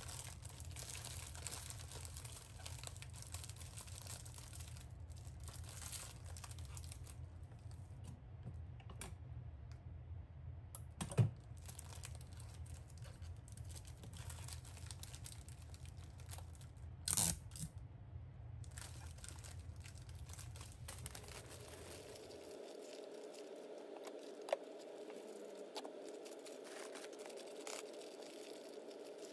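Clear plastic bags crinkling and rustling as pieces of crisp chiffon-cake rusk are handled and slid into them, with two louder rustles about eleven and seventeen seconds in. Underneath is a faint steady hum that shifts to a higher pitch about three-quarters of the way through.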